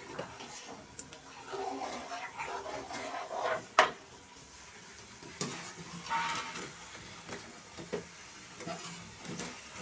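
Kitchen utensil sounds: a metal spoon knocking and scraping in a cooking pan, with a sharp clack about four seconds in as the loudest, another about a second later, and a brief pitched call about six seconds in.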